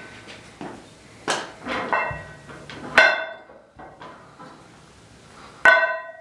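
Steel horseshoes knocking and clanking as they are handled, with two loud, ringing metal-on-metal strikes, about three seconds in and again near the end.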